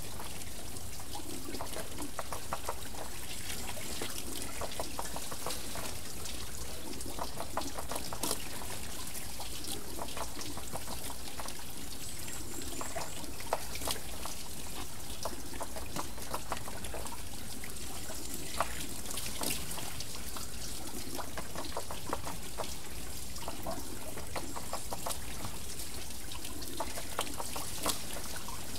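A temple water wheel turning, with water pouring and trickling off it. Clusters of splashes and drips return every few seconds.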